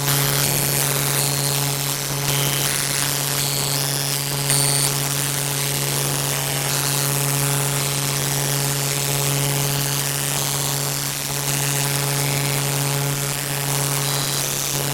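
A loud, steady low buzzing drone with a hissing, crackly noise above it, unchanging in pitch.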